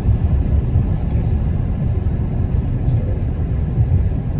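Road and engine noise heard from inside a moving car: a steady low rumble.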